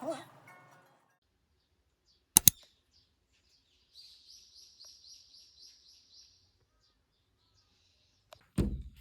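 A bird's rapid trill of about a dozen short high notes, about five a second for two seconds. A sharp click comes before it, and a dull thump near the end.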